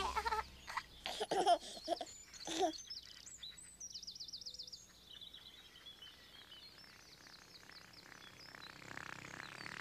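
A baby giggling in a few short bursts over the first three seconds, then birds chirping: a rapid high trill and fainter chirps after it.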